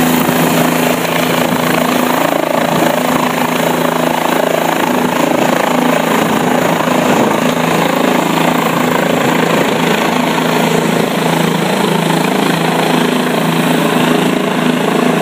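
Bell 407 helicopter, its four-blade main rotor and turbine running steadily and loud as it climbs away overhead.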